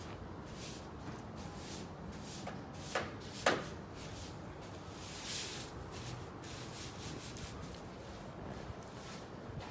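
Footsteps crunching in snow: an irregular series of short scraping steps, the sharpest and loudest about three and a half seconds in, and a longer scuff a couple of seconds later.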